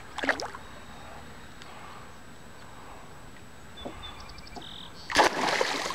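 Hooked northern pike thrashing at the surface beside a canoe: a brief splash just after the start and a longer, louder splash near the end.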